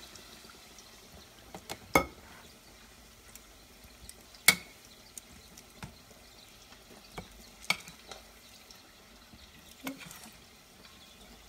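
Metal kitchen tongs clinking sharply against glass mixing bowls several times while coating chicken wings in flour and batter, over a faint steady hiss.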